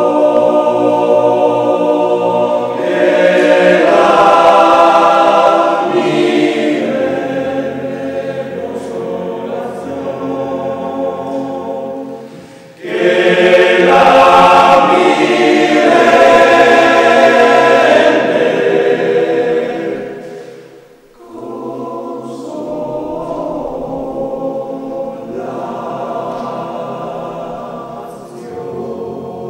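Background choral music: a choir singing slow, sustained chords in long phrases that swell and fade, with brief drops in level about 13 and 21 seconds in.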